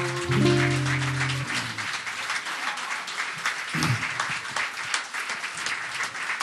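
Audience applause, with the song's final guitar chord ringing for about a second and a half at the start before it stops.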